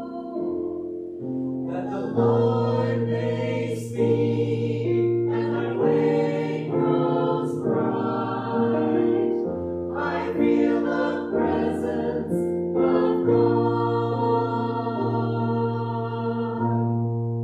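Small mixed choir of men's and women's voices singing an anthem in harmony, moving through held chords.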